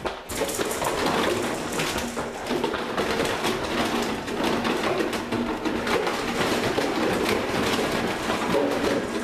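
Puppies playing rough in a hard plastic wading pool: empty plastic jugs and crinkly plastic bottles are knocked, dragged and chewed against the pool floor in a continuous busy clatter and crackle.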